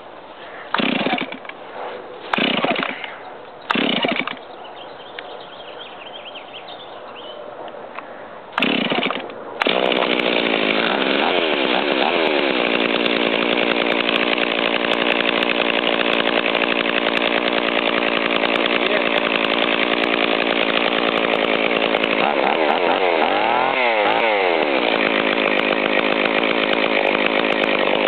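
Stihl 024 Super two-stroke chainsaw cold-started on choke: several pulls on the starter cord, then it catches about ten seconds in and runs steadily, revving up and down briefly twice. The owner admits it is running a little rich on its fuel mixture.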